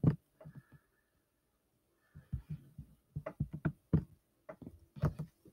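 Irregular soft clicks and taps at a computer desk, mouse clicks among them, in several quick bunches.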